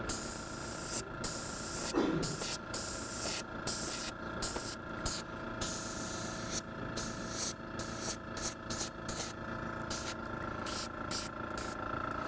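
Airbrush spraying silver acrylic paint in a dozen or more short bursts, its hiss cutting on and off as the trigger is pressed and released, the bursts shorter and quicker in the second half. A steady faint tone runs underneath, and a brief falling squeak comes about two seconds in.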